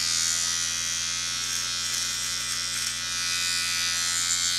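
Electric pet clippers buzzing steadily as they shave the fur from the base of a puppy's tail.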